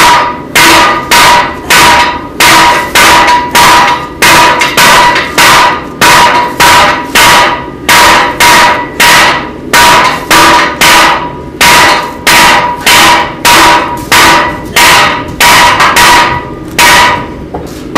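Three blacksmiths' hammers striking hot steel on an anvil in turn, an even rhythm of about two blows a second, each blow ringing. The hammering stops near the end.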